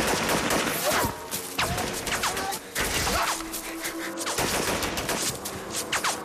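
Dense, rapid gunfire as in a film battle scene, with many overlapping shots and a few short sliding whines among them.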